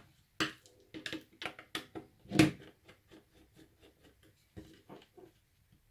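Small clicks and taps of a screwdriver and a wire being worked into the screw terminals of a plastic smart wall switch, with one louder knock about two and a half seconds in.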